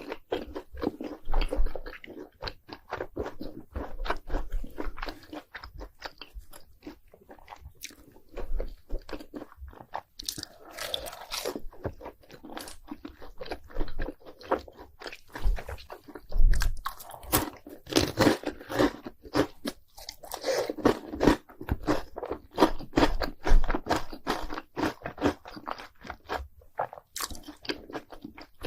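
Close-miked crunching and chewing of fried cheese balls coated in crushed Hot Cheetos: a steady run of crisp bites and mouth sounds, denser in a few spells of vigorous chewing.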